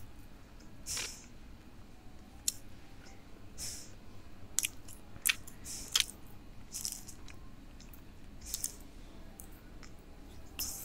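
Close mouth sounds of someone eating soft fast-food burger buns: chewing with short wet smacks and clicks about once a second.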